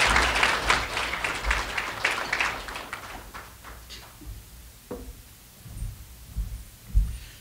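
Audience applauding, loudest at first and dying away over about three seconds into a few scattered claps. After that it is quieter, with a few low thumps near the end.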